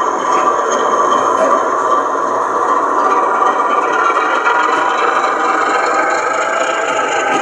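O gauge model diesel shunter running slowly along the layout: a steady motor and wheel-on-rail sound with a light rattle, heard against the hum of a busy exhibition hall.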